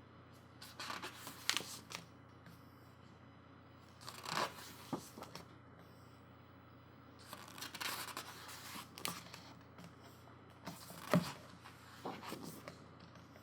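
Pages of a photobook being turned by hand: paper rustling in four short spells a few seconds apart, with a sharp snap in a couple of them.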